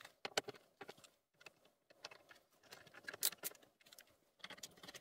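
Faint, irregular small clicks and light rattles of a short screwdriver turning metal screws into metal clips that hold the plastic instrument cluster housing.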